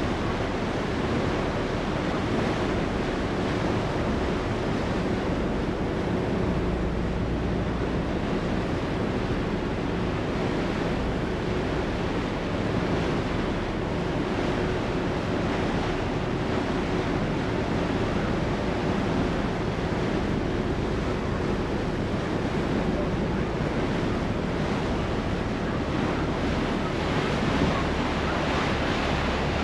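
Steady rush of harbour water churned up in a moving ferry's wake, with wind buffeting the microphone and a low, steady hum of the ferry's engine underneath.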